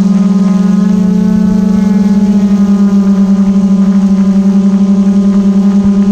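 Small quadcopter drone's propellers humming steadily in flight, a loud low hum with a fast, even throb.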